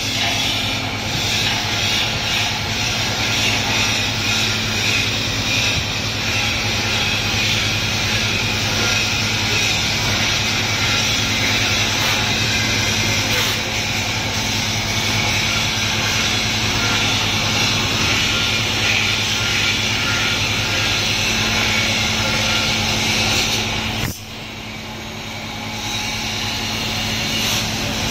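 Steady industrial machinery noise, a loud hiss over a low hum. It drops off suddenly about 24 seconds in and builds back up over the next few seconds.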